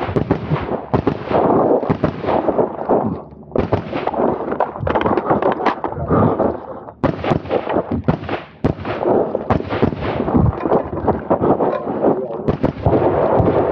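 Daniel Defense MK18 short-barreled 5.56 carbine firing at close range: strings of quick shots, each with an echoing tail, broken by short pauses about three and a half and seven seconds in.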